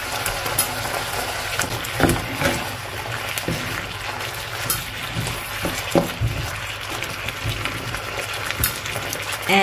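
Chicken livers and onions sizzling in soy sauce and vinegar in a frying pan, with a few sharp knocks of a utensil against the pan as it is stirred.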